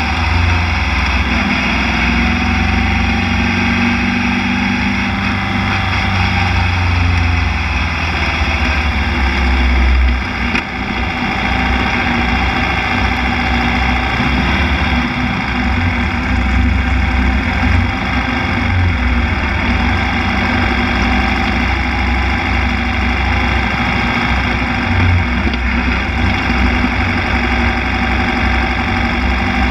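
Formula Vee race car's air-cooled Volkswagen flat-four engine running at low revs, heard from the open cockpit while the car rolls slowly, with a brief dip in the engine sound about ten seconds in.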